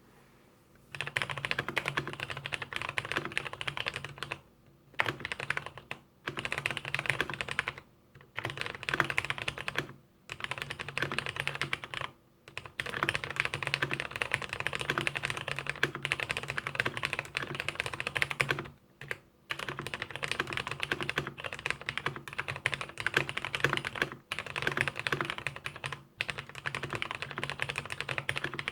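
Rapid typing on a computer keyboard, a dense patter of key clicks that starts about a second in and comes in runs broken by brief pauses.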